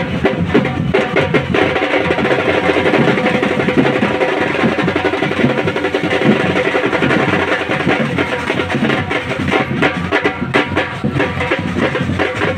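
Street-parade percussion band drumming a dense, continuous beat on drums and other percussion, typical of ati-atihan festival drumming.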